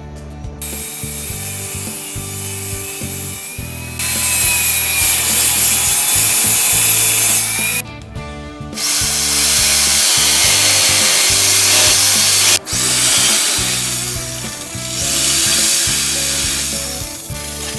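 A power tool working wood in long, steady passes, stopping briefly about eight and twelve and a half seconds in, with background music underneath.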